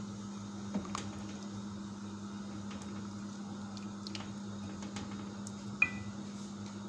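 Silicone spatula stirring chicken curry in a metal pot, with faint wet squishing and light clicks and one sharper tap on the pot about six seconds in, over a steady low hum.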